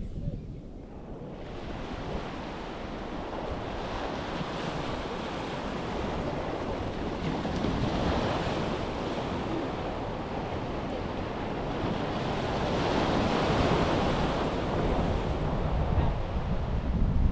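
Waves breaking on a beach, the wash swelling and ebbing in slow surges, with wind rumbling on the microphone, strongest near the end.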